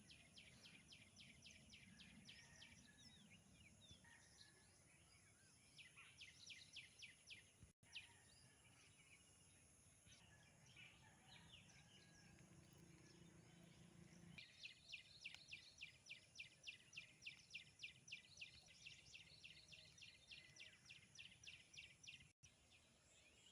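Faint rural outdoor ambience with a bird repeating a short high note about four times a second, in long runs near the start and again in the second half.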